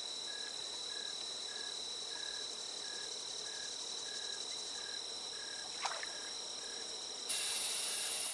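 Insects trilling in a steady high chorus, with a lower chirp repeating a little under twice a second. A single sharp click comes about six seconds in, and a louder steady hiss takes over about seven seconds in.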